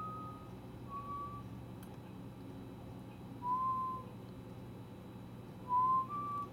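Whistling: a few short, clear notes with pauses between them, ending in a little rising phrase of three notes, over a faint steady low hum.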